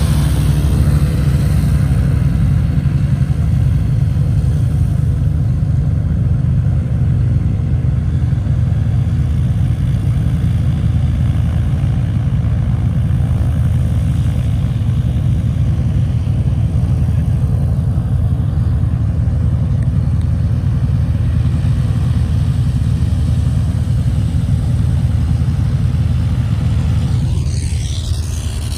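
Radial engine of a yellow agricultural aircraft running steadily on the ground, a loud, even low drone.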